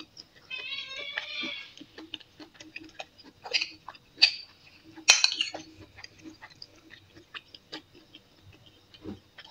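A cat meows once, for about a second, near the start. Then a metal spoon scrapes and clinks against a ceramic plate as rice is scooped, with the sharpest clink about five seconds in.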